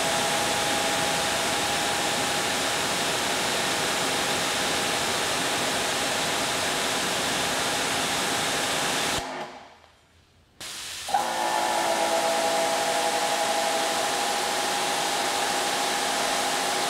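Bauer 2300 psi 1.2 gpm brushless electric pressure washer spraying at full pressure through its factory 15-degree nozzle. The water jet hisses over a steady motor and pump whine, holding about 2200 psi. It cuts out about nine seconds in, goes almost silent for a second and a half, then starts again.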